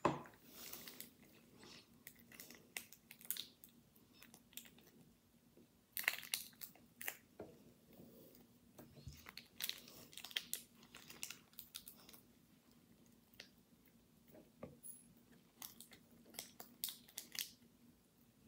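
Thin plastic wrapping and a water-soaked white fibrous pad crinkled, squeezed and torn apart by hand in a bowl of water, with water dripping back into the bowl: faint, irregular crackles and wet squishes, with a sharp click right at the start.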